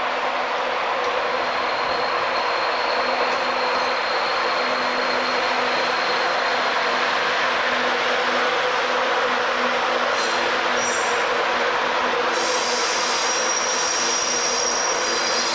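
British Rail Class 91 electric locomotive and its InterCity coaches rolling past slowly with a steady rumble. High wheel squeal comes in short squeals about ten seconds in, then a stronger, longer squeal near the end.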